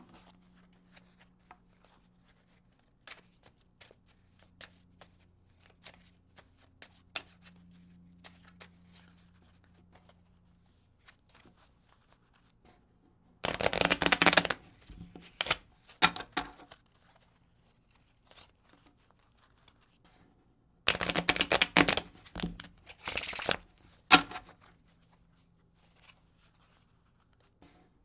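A deck of playing cards handled with scattered light clicks and taps, then shuffled in quick dense bursts of card flicks, about 13 seconds in and again about 21 seconds in, with a few shorter bursts between.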